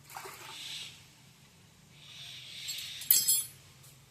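Metal tools and tractor parts clinking sharply together a few times about three seconds in, with a short metallic ring, during dismantling of the half-shaft assembly. Two soft hissing sounds come before it, one at the start and a longer one building just before the clinks.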